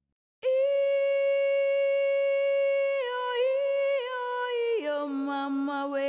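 Background music: a long held note begins about half a second in, sinks a little around three seconds in, then drops about an octave near the five-second mark and carries on there.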